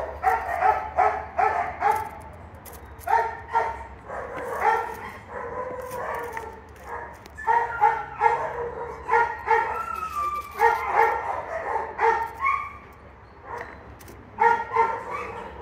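A dog barking and yipping in repeated short bursts, with a few longer, higher calls.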